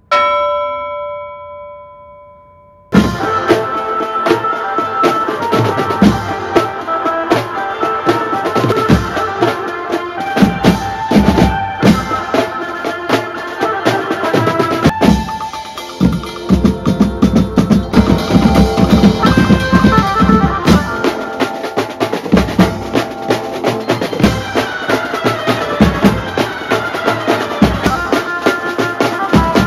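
A chime-like tone rings and fades over the first three seconds. Then a Mumbai banjo party street band starts playing loud: drum kits, snare drums and big bass drums beat a fast, dense rhythm under a melody line.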